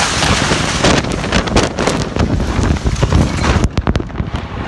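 Storm wind blowing hard against the microphone in gusts, with many sharp knocks and rattles of things being struck. The noise thins out near the end.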